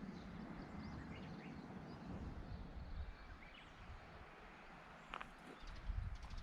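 Rural outdoor ambience: small birds chirping in short calls over a low steady rumble, with a few sharp clicks near the end.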